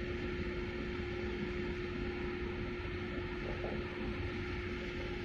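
Large LPG tanker's engines and machinery: a steady low rumble with one constant hum over it.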